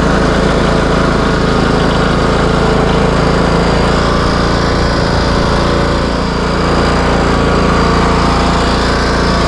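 Craftsman T130 riding mower engine running steadily as the tractor is driven across grass, working properly after its repair.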